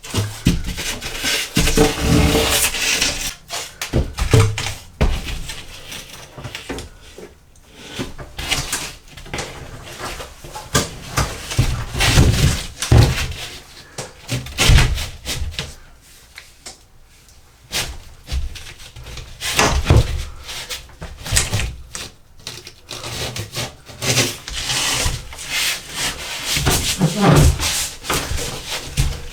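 Hand renovation work in a small bathroom: irregular scraping and rubbing with scattered knocks and clunks, no power tool running.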